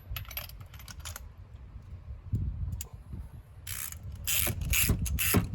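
Ratchet wrench clicking as it is cranked to turn a spark plug into the engine. The clicks are sparse and faint at first, then come in a quick, loud run of strokes from about two-thirds of the way in.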